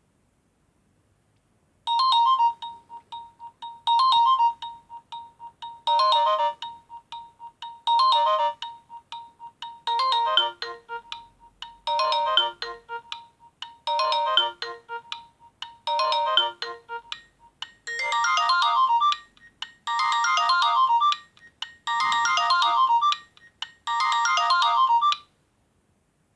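Nokia N70 mobile phone ringtone: a short electronic melody phrase repeating about every two seconds, changing to a new variation about two-thirds of the way through, then stopping.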